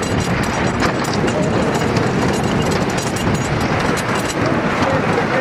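Scenic Railway wooden roller coaster train running along its timber track, a steady loud rumble of wheels with many small clatters and knocks from the track joints.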